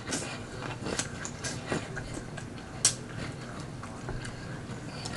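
Close-miked chewing of a mouthful of chitterling boil, with wet mouth clicks and smacks throughout and one sharp click about three seconds in.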